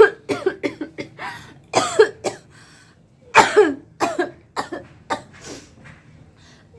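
A series of about a dozen short coughs, some with a voiced edge, with a gap of about a second near the middle. They are coughs made on request, play-acted rather than from illness.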